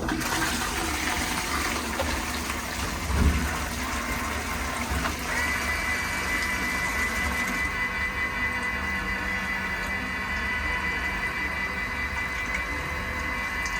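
Toilet flushing with a loud rush of water. A steady high whistle joins about five seconds in and holds.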